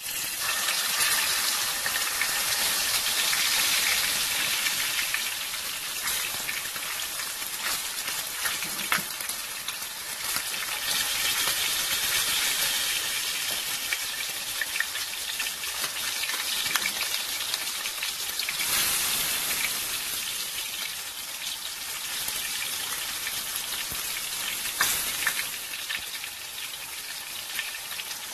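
A whole pompano frying in hot cooking oil, a steady sizzle that starts loud the moment the fish goes into the pan and keeps going, with occasional sharp pops of spitting oil.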